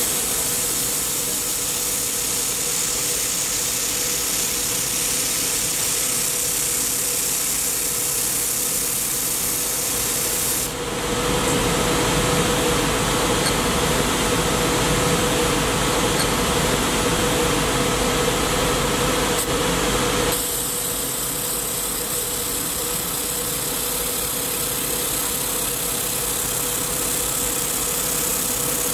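Handheld laser welding machine running with a steady hum and hiss and a constant mid-pitched tone. The sound steps in level and colour abruptly about a third and two-thirds of the way through.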